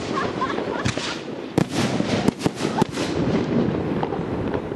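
Fireworks display: a rapid, irregular string of sharp bangs from bursting shells, bunched together around the middle, over a continuous crackling hiss.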